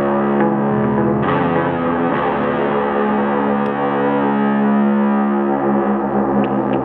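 Loud, dense droning music: distorted, effects-processed electric guitar holding many layered, sustained notes, the chord shifting a couple of times.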